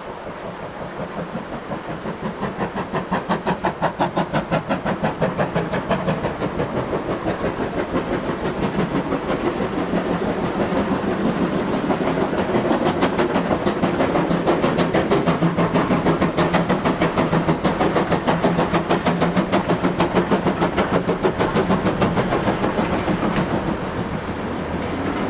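Steam locomotive running at speed, its exhaust beats coming fast and even, growing louder over the first few seconds.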